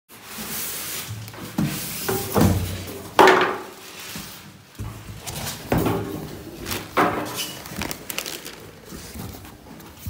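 Cardboard carton and foam packing being handled as a washing machine is unboxed: a run of irregular scrapes, rubs and knocks, the loudest about three seconds in.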